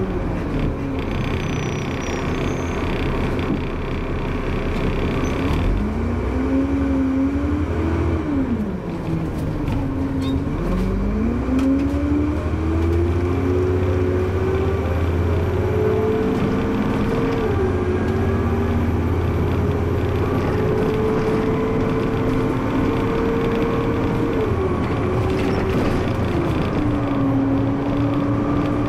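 A bus's engine and drivetrain heard from the driver's cab as the bus slows and then pulls away. The engine pitch dips and rises in the first few seconds, then climbs steadily, with two short drops, about two thirds through and near the end.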